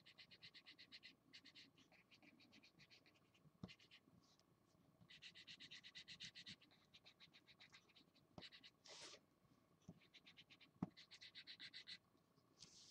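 Felt-tip marker scribbling on paper in quick back-and-forth strokes, about ten a second, in spells of a second or two with short pauses. A few short knocks come in between, the sharpest one late on.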